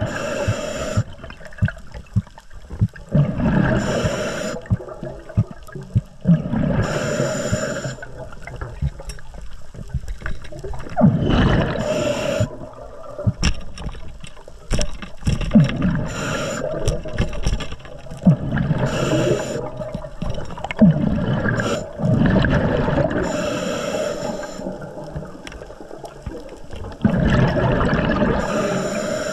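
Water gurgling and bubbling, with many short pops and a hissing rush of bubbles every few seconds, at irregular gaps.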